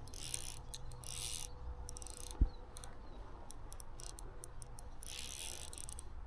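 Fly reel's drag buzzing in short runs of rapid clicks as a hooked trout pulls line off it: three bursts, with a single dull thump about two and a half seconds in.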